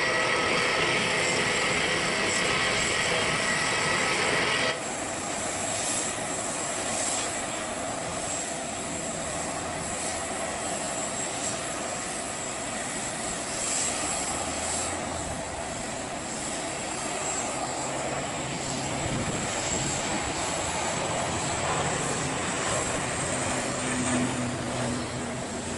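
Twin turboprop engines of a Citilink ATR 72-600 running with propellers turning, a steady engine whine and propeller noise. The sound changes abruptly about five seconds in, and a low drone comes in near the end as the aircraft is on its takeoff roll.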